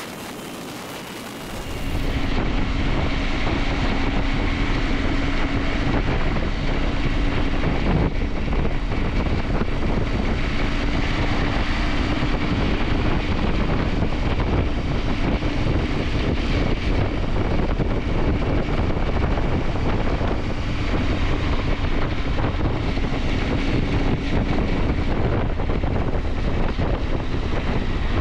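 KTM 890 Adventure's parallel-twin engine running steadily under way, a constant drone mixed with wind rush. It starts about two seconds in, after a short quieter hiss.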